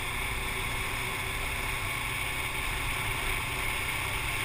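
Steady wind rush over a helmet-mounted action camera with the low drone of a dual-sport motorcycle's engine underneath, riding at a constant speed.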